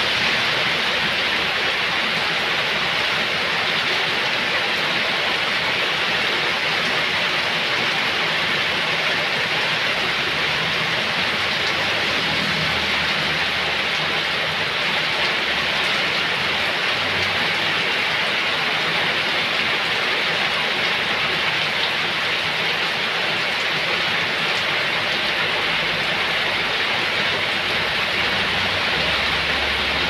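Heavy rain falling steadily and splashing onto wet, puddled ground.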